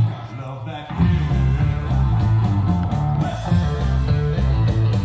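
Background rock music with guitar. It is quieter for about the first second, then comes back in full.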